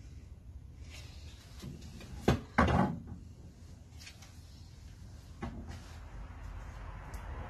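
Steel coil springs for a VW T4 knocking together and against their stand as they are lifted and turned by hand: a sharp knock a little over two seconds in, then a louder clunk right after, with a few fainter clicks later.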